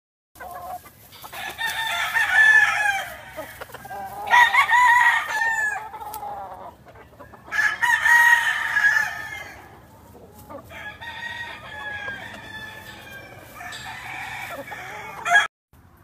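Gamefowl roosters crowing: three loud, drawn-out crows of a second and a half to two seconds each in the first ten seconds, then fainter crowing in the background, with a short loud call just before the sound cuts off.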